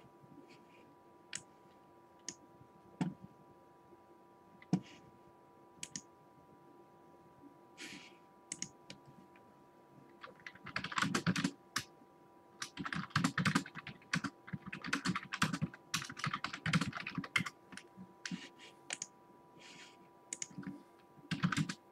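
Typing on a computer keyboard: a few scattered keystrokes, then rapid, continuous typing from about halfway through.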